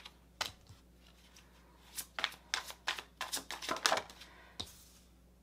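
Tarot cards being handled and shuffled: a string of short, sharp card snaps, sparse at first and then a quick run about two to four seconds in, as a card is drawn from the deck and laid on a wooden table.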